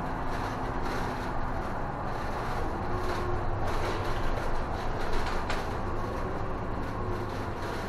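Isuzu city bus under way, heard from inside at the front: a steady engine hum and road noise, with a few light knocks and rattles from the cabin.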